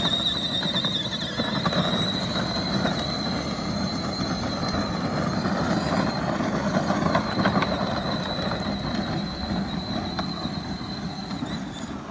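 Electric drive motors of a child's ride-on side-by-side whining up in pitch as it gets going, then holding a steady high whine over a rough low rumble. The whine stops near the end.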